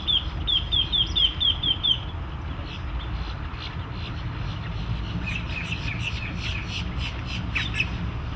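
A bird chirping in a quick run of short, falling notes, about five a second for the first two seconds, then more scattered chirps later, over a steady low rumble.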